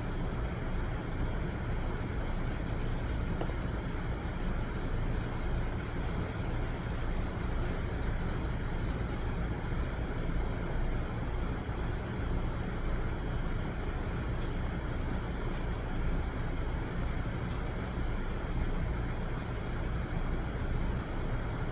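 Steady low rumbling background noise, with a quick run of faint pencil strokes on paper for several seconds early on.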